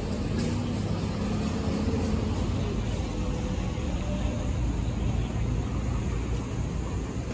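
Steady low rumble of street traffic, with a faint engine drone held for the first few seconds.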